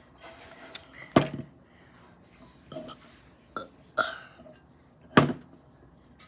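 A person burping: two loud burps, one about a second in and one near the end, with a few shorter, quieter sounds between.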